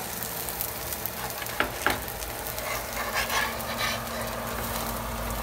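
Dosa batter sizzling in oil on a hot griddle, a steady hiss with fine crackles, and two sharp clicks about a second and a half in.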